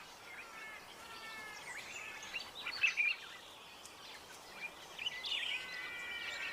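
Several wild birds calling: overlapping short whistles and chirps, some gliding in pitch, with a brief flurry of sharper chirps midway.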